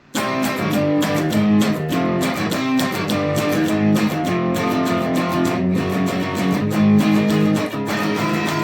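Instrumental song intro led by guitar, kicking in abruptly at the start and playing steady chords to an even beat, with no vocals yet.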